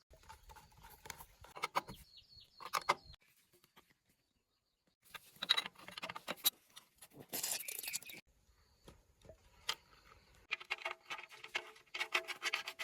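Metal tools and engine parts clinking and rattling as they are handled during work on a diesel engine, in short irregular bursts with pauses. Ringing metal clinks come near the end.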